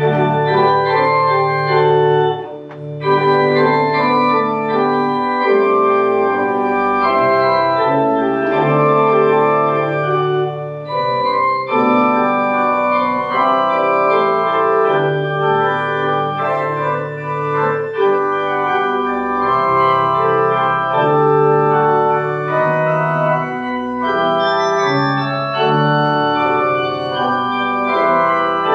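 Church organ playing full held chords over a moving bass line, with a short break between chords about two and a half seconds in.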